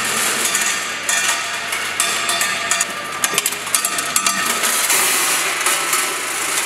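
Vibratory bowl feeders of an automatic screw and hardware counting and packing machine running, with metal fasteners clattering and clinking in the stainless-steel bowls and chutes in a dense, continuous rattle.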